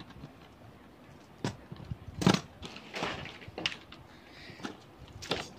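Scattered plastic clicks and knocks as Beyblade tops are handled and set down in a clear plastic stadium, about six separate taps with the loudest a little past two seconds in.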